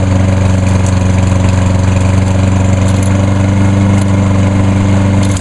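Kohler Courage XT6 149 cc single-cylinder engine on a Lawn-Boy walk-behind mower running at a steady speed, starting to wind down at the very end.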